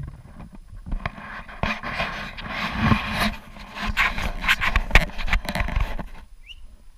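A dog panting loudly close to the microphone, mixed with sharp clicks, the panting stopping near the end.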